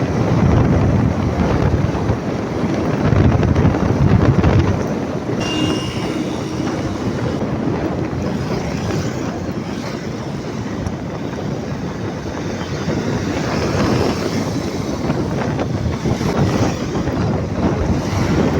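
Steady vehicle road noise with wind buffeting the microphone, heavier and lower for a few seconds near the start, with a faint brief tone about five and a half seconds in.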